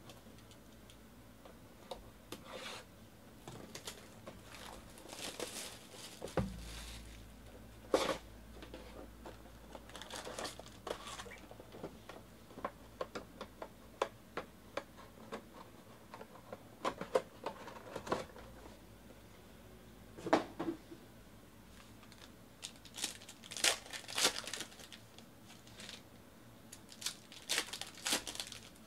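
Hands opening a 2019 Panini Certified football card box, the cardboard lid pulled open, then a card pack's wrapper torn and crinkled. Scattered rustling bursts and small clicks come and go throughout.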